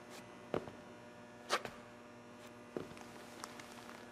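A low steady hum with a handful of soft, irregular clicks and taps, the loudest about a second and a half in.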